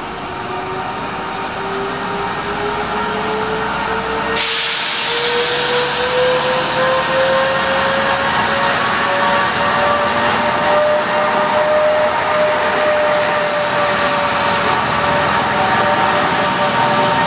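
Diesel locomotive rolling past close by, getting louder, its engine tone rising slowly in pitch. About four seconds in, a loud hiss of running noise sets in as it draws alongside.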